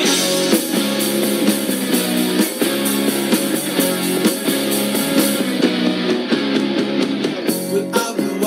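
Backing music with guitar and a steady beat, an instrumental stretch between sung lines; a man's singing comes back in near the end.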